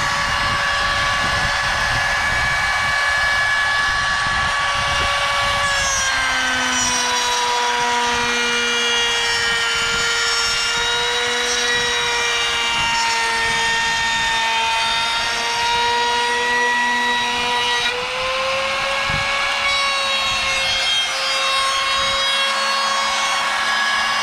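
Handheld compact router running with a steady high whine as its bit cuts a groove along a pine board for a drawer bottom. The pitch sags a little from about six seconds in as the bit takes the cut, then comes back up near eighteen seconds.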